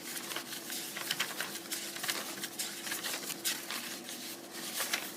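Paper notes being handled, a quick run of light rustles and clicks, over a faint steady electrical hum.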